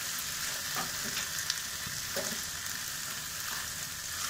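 Okra and onions sizzling gently in a non-stick kadhai while a spatula stirs through them, with a few separate scraping strokes against the pan.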